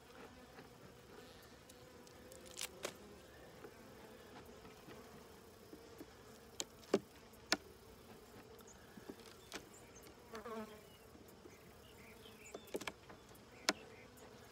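Honeybees buzzing over an open hive, a faint steady hum, with a few sharp clicks and taps of a metal hive tool against the wooden frames.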